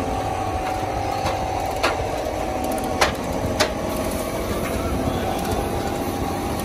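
A steady machine drone with three sharp knocks, about two, three and three and a half seconds in, the middle one the loudest.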